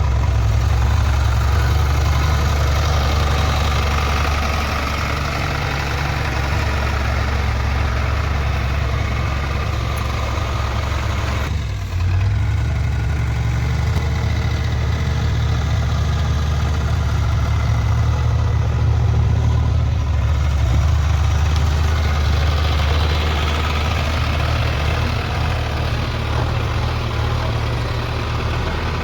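JCB backhoe loader's diesel engine running steadily, with a brief break about twelve seconds in before it carries on.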